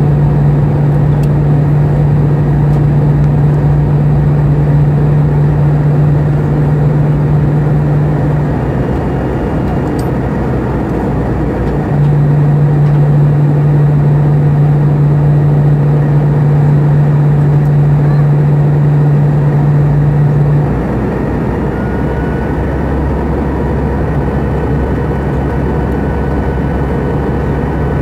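Airbus A320 cabin noise at a window seat beside the engine: a steady rush of air and jet engine drone with a strong low hum. The hum drops out about eight seconds in, returns about four seconds later, and drops out again about twenty seconds in; each time the overall level falls slightly. A deeper hum comes in a couple of seconds after the second drop.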